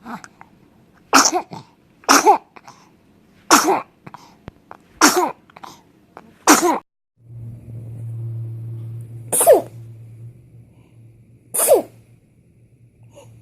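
Baby sneezing over and over in short, sharp bursts: five sneezes about a second apart, then two more. A steady low hum runs under the later sneezes.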